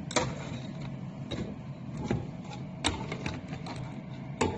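Empty glass jars being set down one by one on a conveyor belt, giving irregular sharp clinks and knocks, three of them louder than the rest, over a low steady hum.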